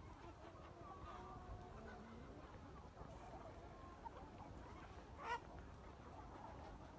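Faint clucking and scattered calls from a flock of free-range chickens, with one short, louder call a little over five seconds in.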